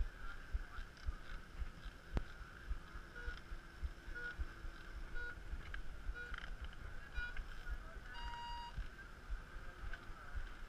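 Race start clock beeping short pips about once a second, then a longer, higher beep about eight seconds in: the countdown and start tone for a rider. Irregular low thumps on the helmet-camera microphone run underneath.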